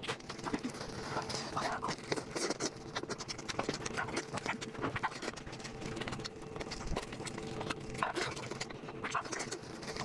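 Close-miked eating: rapid, irregular wet chewing and crunching clicks, with a faint steady hum behind.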